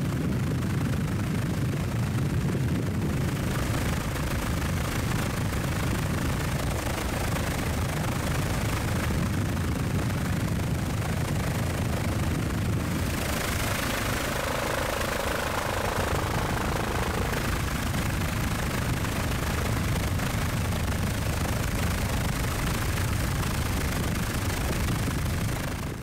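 Helicopter engine and rotor noise recorded on board: a steady drone with a fast, low flutter. Its tone brightens about halfway through.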